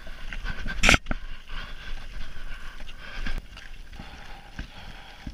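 Mountain bike riding down a forest dirt trail: tyres rolling over leaves and dirt while the bike rattles and knocks over bumps, with one sharp, loud clack about a second in.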